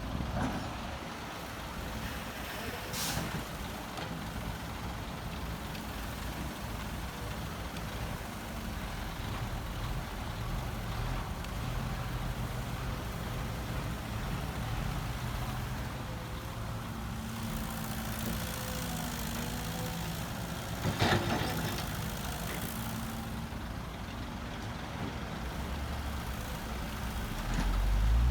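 Heavy construction machinery's diesel engine running, its pitch stepping up and down as it works. A sharp metallic clank comes about three seconds in, and a louder one about twenty-one seconds in. The engine swells near the end.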